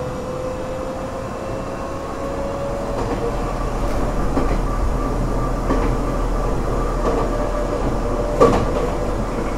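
Tokyo Metro 8000 series chopper-controlled train running, heard inside the car. A thin whine rises slowly in pitch over the first few seconds as the running noise grows louder with speed, and the wheels click over rail joints, with one loud clunk near the end.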